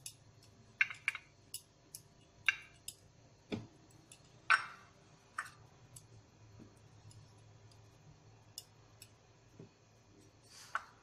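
Scattered light clicks and taps of hands setting momos into the cups of aluminium idli-stand plates, small knocks against the metal, thinning out about halfway through.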